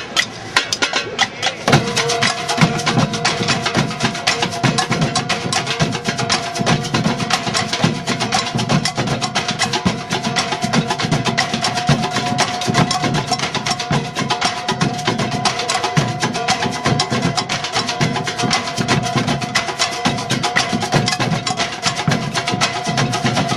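Percussion-led music with fast, dense strokes. A steady held tone comes in about two seconds in and carries on under the rhythm.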